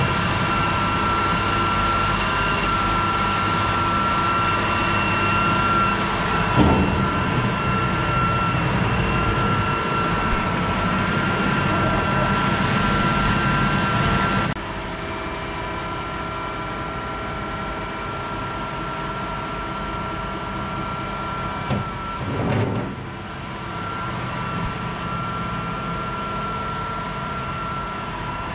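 Machinery running steadily, a drone with several constant whining tones. About halfway through it drops abruptly in level and changes character, and a short rising-and-falling sound comes about three-quarters of the way in.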